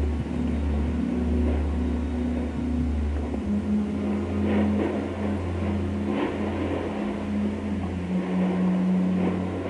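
Low, droning background music: deep held notes that change pitch about three and a half seconds in and again near eight seconds, with a few faint hits in the middle.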